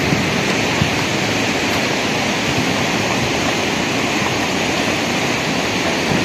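Steady rushing of loose rock and gravel sliding down a fresh landslide debris slope, an even noise that does not let up.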